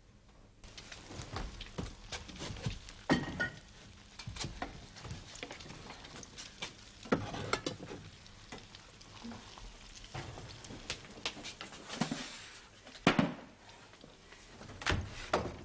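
Sausages frying in a pan on a kitchen range, a steady sizzle starting just after the beginning, with several sharp knocks and clatters of pan and utensils.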